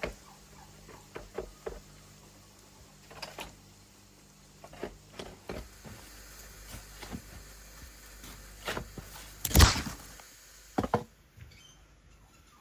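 Scattered, irregular knocks and clicks, the loudest about nine and a half seconds in, followed by a quick double knock.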